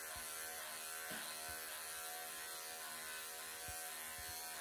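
Wahl cordless pet clippers running with a steady electric buzz while trimming the long fur of a Ragdoll cat's bib under the chin.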